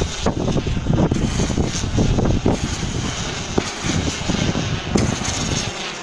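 Fireworks firing in a dense barrage: a continuous rumble of many overlapping bursts with crackle. It dies down over the last few seconds, leaving a few separate bangs.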